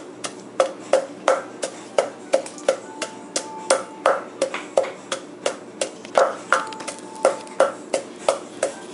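Wooden pestle pounding in a mortar to make papaya salad. The strokes are steady and evenly spaced, about three a second.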